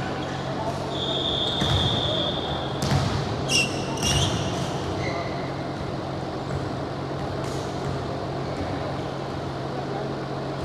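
Indoor court game: a ball thumping on the court, short shoe squeaks and a high tone held for nearly two seconds, over a steady hum in a large hall.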